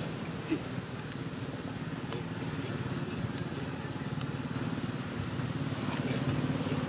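A small engine running steadily, a low even hum that grows a little louder, with a few faint clicks.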